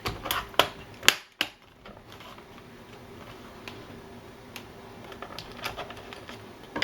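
Plastic memory-access panel on a Dell Vostro 1510 laptop's underside being fitted back on, its latches clicking into place: a handful of sharp clicks in the first second and a half, then fainter scattered ticks.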